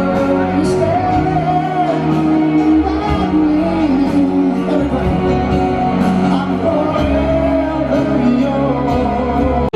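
Live rock concert: a male lead singer holding long sung notes over a full band, heard through a large outdoor PA. The sound cuts off abruptly near the end.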